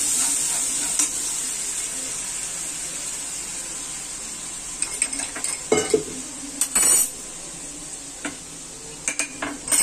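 Spice paste sizzling in oil in a steel kadai on a low gas flame, a steady hiss that slowly fades. Over it, the spoon knocks on the pan and steel and glass bowls clink, in a cluster around the middle and again near the end.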